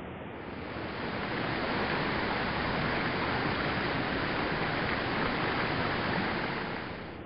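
Small artificial rock waterfall splashing into a shallow basin: a steady rush of falling water that grows louder about a second in and fades again near the end.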